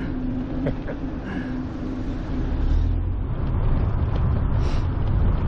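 Road traffic on the ride, with a motor vehicle's low rumble growing louder about halfway through.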